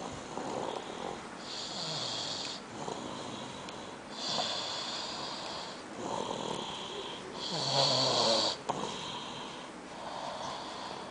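A sleeping child snoring, breath going in and out in a regular rhythm of about one snore every three seconds; the loudest snore comes about eight seconds in.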